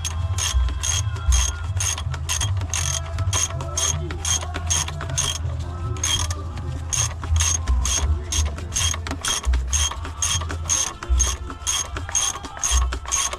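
Hand ratchet wrench clicking steadily, about three clicks a second, while bolts on a newly fitted motor mount are tightened down, with a short pause about halfway through.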